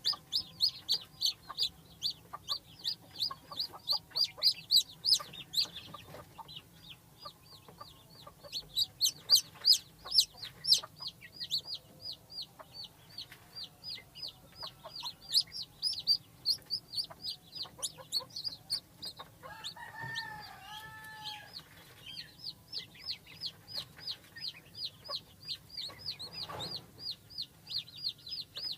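Newly hatched chicks peeping continuously, short high notes that slide down in pitch, several a second and overlapping from many birds. About twenty seconds in, a few lower, arched calls break in briefly.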